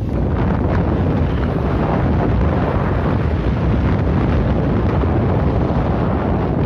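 Wind buffeting the microphone of a camera on a moving motorbike: a steady, loud, low rumble of rushing air.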